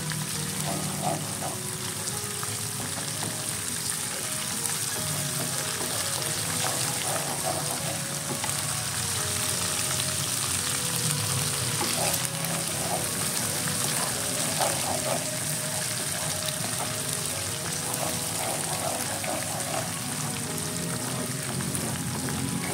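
Grated galangal and spice paste frying in hot oil in a wok, sizzling steadily, stirred with a wooden spatula.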